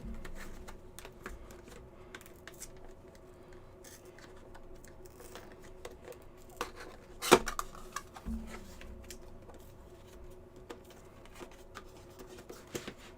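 Scattered clicks, taps and rustles of a sealed trading-card box and its inner packaging being opened by hand, with one sharp click about seven seconds in.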